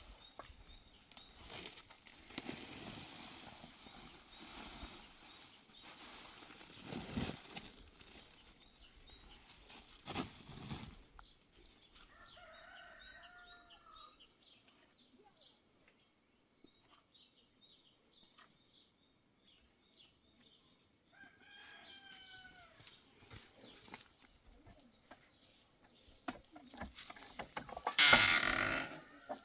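Farmyard fowl: two short calls that bend in pitch, and a loud flurry of flapping wings near the end.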